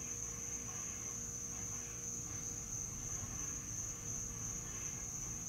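Crickets trilling in a steady, high-pitched night chorus that never breaks, over a faint low background hum.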